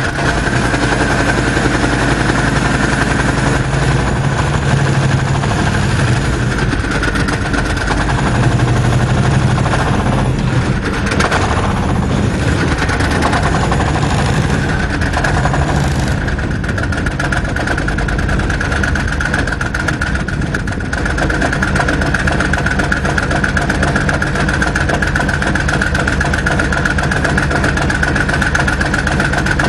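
Engine of an Argo-based replica tank running as the tank drives out on rubber tracks, then settling to a steady idle for the second half.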